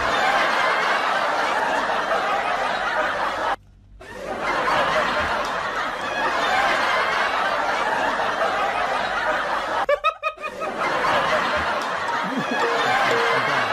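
People laughing and snickering in a dense, continuous stream, broken by a brief silence about three and a half seconds in and a short dip around ten seconds.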